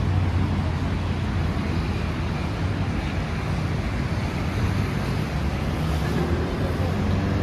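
Steady wash of city street traffic, with a low engine hum underneath.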